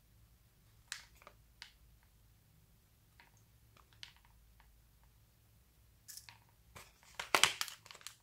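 A few light clicks and taps of small plastic and clay charms being handled over a glass dish, then a louder burst of crackling rustle near the end as a plastic packet of charms is handled.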